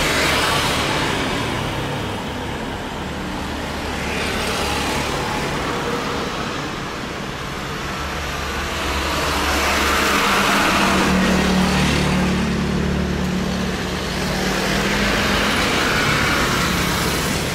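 Outdoor road traffic: vehicles pass close by, their noise swelling and fading every several seconds over a steady rumble, with a low engine hum for a few seconds past the middle.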